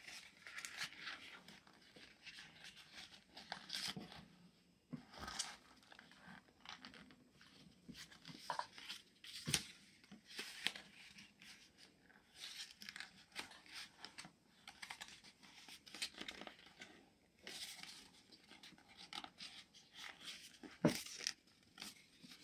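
Sheet of paper rustling and crinkling in irregular bursts as it is handled and pulled open into an origami boat, with a couple of sharper crackles, the loudest near the end.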